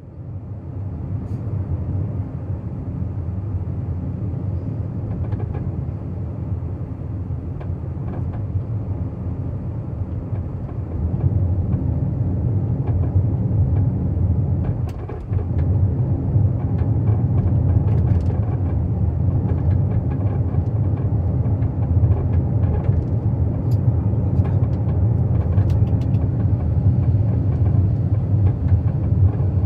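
Cabin noise inside a moving Honda N-BOX Custom Turbo: steady road and engine rumble, getting louder about eleven seconds in, with scattered short clicks and rattles from the car. The owner reports these as an abnormal rattling and squeaking noise that has recently appeared.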